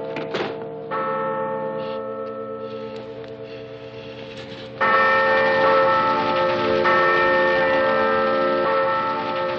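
Large church bells ringing, each stroke humming on with many overlapping tones as it slowly fades. A new stroke comes about a second in, and a louder one about five seconds in.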